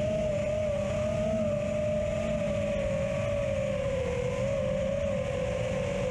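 FPV quadcopter's brushless motors whining at a steady high pitch, heard through the drone's onboard camera, wavering a little and sagging slightly lower after about four seconds, over a rumble of propeller wash and wind.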